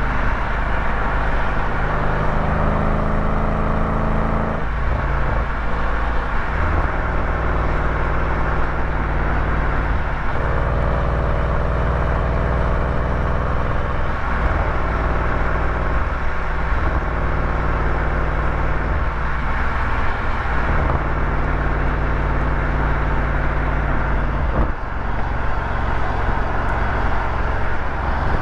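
A vehicle engine running on the move over steady road and wind noise. Its pitch changes abruptly several times, every four to six seconds.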